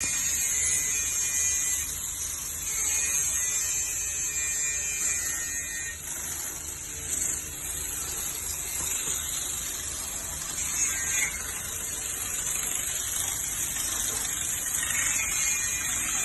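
High-pressure water jet spraying steadily from a pressure washer's jetting line, a constant high hiss with a low hum underneath.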